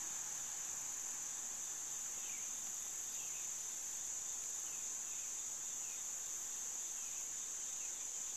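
A steady, high-pitched insect chorus, with faint short falling chirps about once a second.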